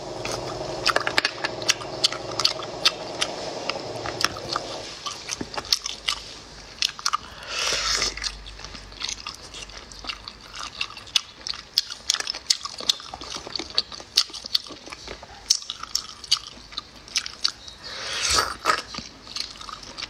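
Close-miked eating of small abalone in chili-oil sauce: wet mouth clicks, lip smacks and chewing as the meat is bitten and sucked off the shells. Two longer slurps stand out, about 8 seconds and 18 seconds in.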